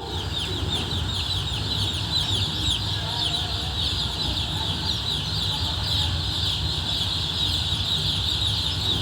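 A large crowd of chicks peeping all at once: a dense, unbroken chorus of short, high, falling cheeps, over a steady low hum.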